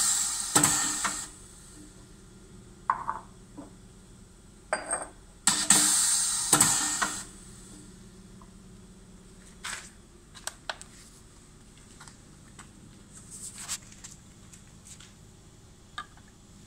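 Pneumatic piston doser cycling twice, each dose a burst of hiss about a second and a half long as it dispenses granulated sugar into a glass jar. Between and after the doses come sharp clinks of the glass jar, then lighter scattered clicks and knocks as the jar is handled.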